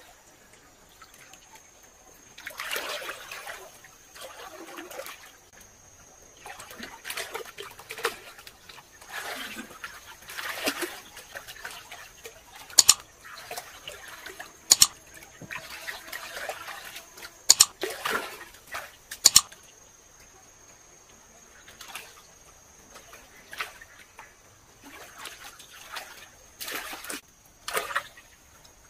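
Water sloshing and splashing in a shallow muddy pool as hands grope through it, in irregular bursts, with four sharp slaps on the water in the middle stretch.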